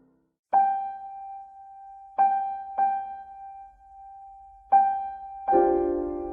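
Background piano music: a single note struck four times with long ringing decays, then a fuller chord comes in near the end.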